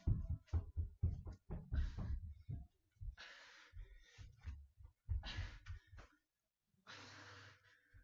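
Heavy breathing after hard exercise: three long, breathy exhalations about two seconds apart. Soft knocks and rustling come in the first couple of seconds.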